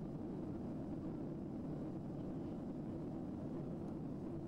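Steady low drone of an airliner cabin in flight: engine and airflow noise with no change.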